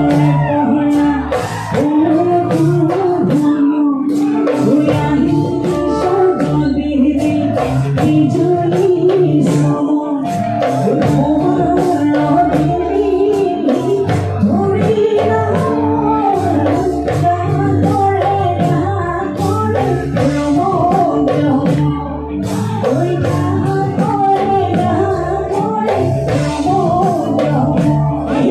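Live Assamese Bihu song: a woman singing with a band of dhol, drum kit and bass guitar, over a steady drumbeat.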